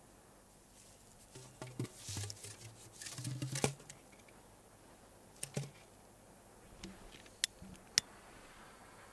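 Hands handling a homemade 4-inch paper firework shell: faint rustling and a cluster of soft knocks in the first few seconds, another knock midway, then two sharp clicks near the end.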